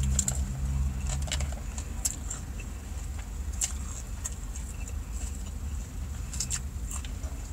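Eating a salad with a fork from a clear plastic takeout container: scattered small clicks and crackles of fork and container, over a low steady hum inside a car.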